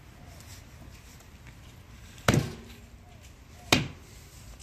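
Two chops of a large knife through raw poultry into a wooden chopping block, about one and a half seconds apart, each a sharp thud.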